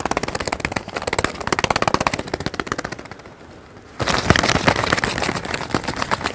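A rapid rattling run of sharp clicks, many a second like machine-gun fire, dying away about three seconds in; a second run of knocks and clicks starts about four seconds in.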